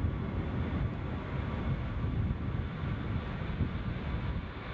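Jet airliner's engines during takeoff: a steady low rumble with a faint high whine over it.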